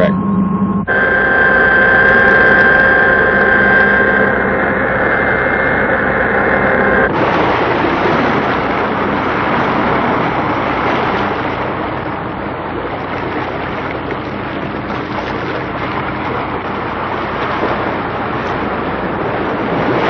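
Steady machine hum with several high whining tones, then, after an abrupt cut about seven seconds in, a steady rushing noise.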